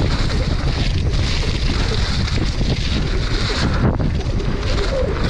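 Wind rushing over a helmet or chest camera's microphone, mixed with the steady roll and clatter of mountain bike tyres on a dry dirt trail during a fast downhill descent.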